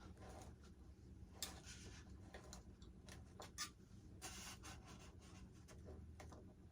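Faint scratchy squeaks and scattered ticks of a drill bit being twisted by hand into the foam of a model jet's fuselage, boring out a channel.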